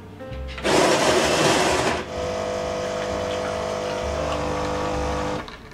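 Siemens bean-to-cup coffee machine brewing. A loud whirring rush lasts about a second, then comes a steady pump hum with a few held tones while the coffee pours, and it stops just before the end.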